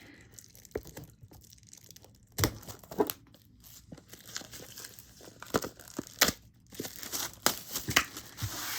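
Plastic packaging on a new Blu-ray steelbook being torn open and crinkled by hand: a run of irregular crackles and snaps with a rustle near the end.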